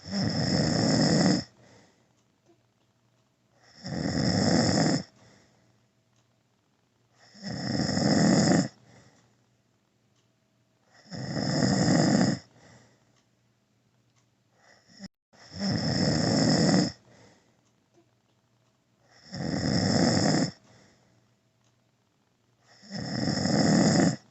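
Adult man snoring in deep sleep: seven loud snores, about one every four seconds, each lasting a second or so, building up and then cutting off, with quiet breathing between.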